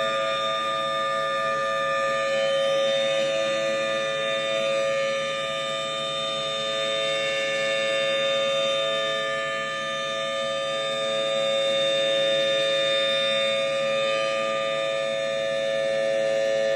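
Federal Signal Thunderbolt 1000T dual-tone civil defense siren sounding a steady wail at full pitch. Its two close tones are held steady while the loudness slowly swells and fades.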